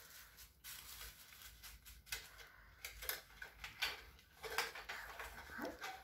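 Faint, irregular clicks and rustles of hands handling a plastic toy vacuum cleaner and its paper and plastic packaging while it is unpacked.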